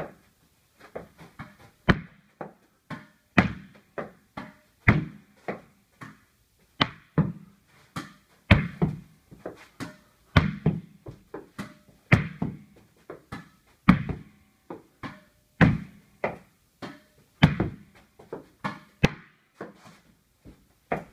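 Tennis ball struck with a racket and rebounding off the walls and floor of a small bare room: a rally of sharp thwacks about every one and a half to two seconds, with lighter bounces between, each ringing briefly in the room.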